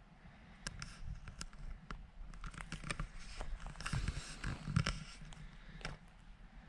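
Close scratching and rustling handling noises with scattered sharp clicks, and a few low thumps about four to five seconds in.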